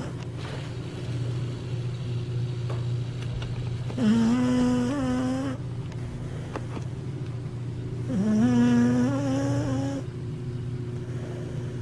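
Sleeping cocker spaniel snoring with a steady low rumble, twice letting out a drawn-out wavering moan, about four and eight seconds in.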